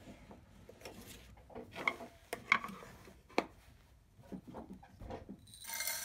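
A vintage walnut-veneered wooden coffee grinder being handled: scattered light knocks and clicks as its small wooden drawer is slid into the box and the metal hopper top is worked, with a short rustle near the end.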